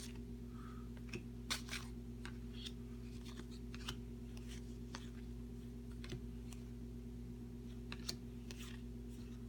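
Trading cards being sorted by hand: faint, scattered taps and slides as cards are picked up and laid down on a table. A steady low hum runs underneath.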